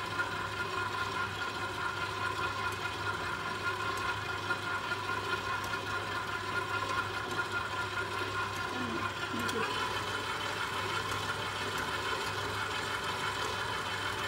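Electric stand mixer motor running steadily with an even hum while mixing cookie dough as flour is added.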